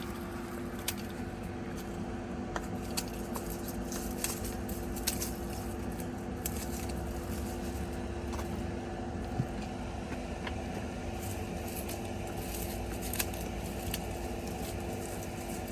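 Irregular clicks and rustling as sweet potato vines are cut back, over a steady low hum.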